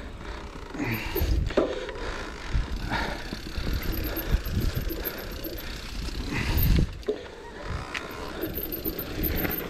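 Electric mountain bike riding down a muddy forest trail: tyres rolling over mud and leaves, with uneven rumble and a few sharp knocks as the bike hits bumps.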